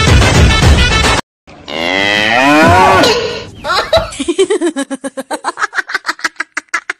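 Music cuts off about a second in. Then comes a loud cow moo that falls in pitch, followed by a fast run of short stuttering pulses that slows and fades away.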